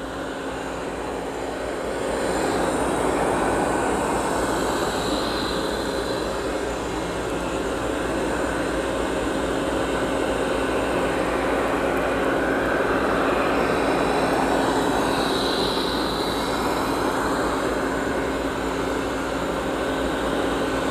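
Amarey A800 robot vacuum running steadily, its suction motor and brushes whirring as it sweeps up scattered cat litter.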